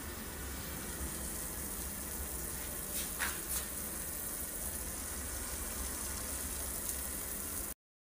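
Water heating in an electric hot pot, a steady hiss with two short sharp sounds about three seconds in; it cuts off near the end.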